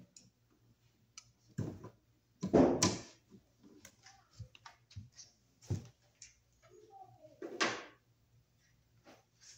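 Knocks, clatter and rustling of hand tools and small parts being handled and picked through, loudest about two and a half seconds in, with more knocks around six and seven and a half seconds.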